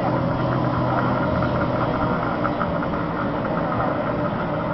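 Racing tunnel boats' 30 hp outboard motors running at a steady pitch.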